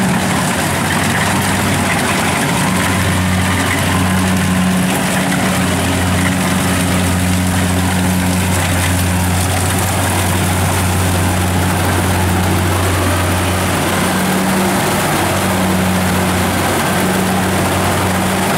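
Kubota DC-70 rice combine harvester's diesel engine and threshing machinery running steadily while it cuts rice, a deep, even hum with a wavering drone above it.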